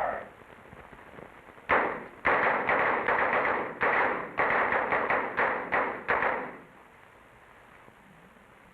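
A rapid string of about a dozen pistol shots over some five seconds, each with a short echo, then the firing stops.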